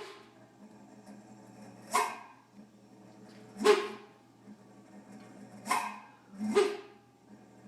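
Chest freezer's compressor giving about five short, yip-like barks at uneven gaps of one to two seconds, over a steady low hum. The owner takes the barking compressor as a sign that the freezer is about to fail.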